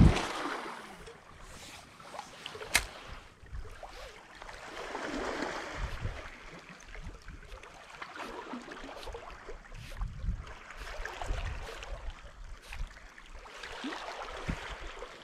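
Seawater washing and sloshing in swells every few seconds, with one sharp click a few seconds in.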